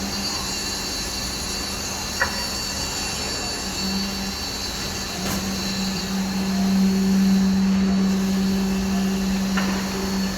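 KCP63 concrete pump truck running: a steady mechanical hum that grows louder about six seconds in. Two short clicks, about two seconds in and near the end.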